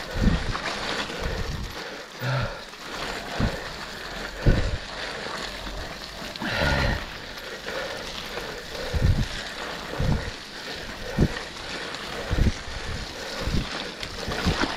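Mountain bike riding through mud and puddles: tyres splashing and churning, with low thumps from bumps in the trail about once a second.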